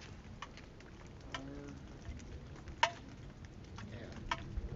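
Quiet outdoor lull with a few faint, scattered sharp ticks and pops, and a brief faint voice about a second and a half in.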